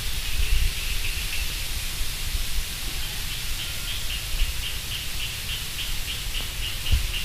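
Steady background hiss over a low rumble, with a faint run of evenly spaced high chirps, about three a second, through the second half.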